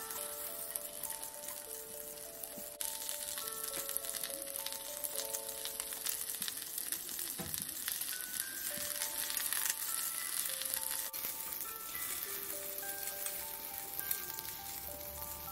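Okra and chikuwa slices sizzling as they fry in oil in a frying pan, a steady crackle while they are turned with chopsticks. About halfway through there is a soft thump as the chikuwa slices go into the pan.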